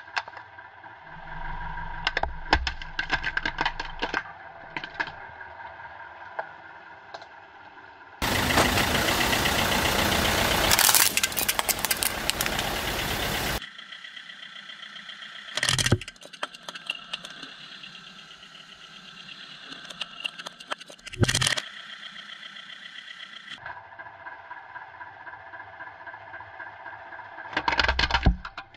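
A car tyre rolling slowly over plastic toy cars on wet asphalt, the plastic cracking and snapping in quick clusters about two seconds in and again near the end as a toy truck is crushed flat. In the middle a loud steady noise runs for about five seconds, and two short thumps follow.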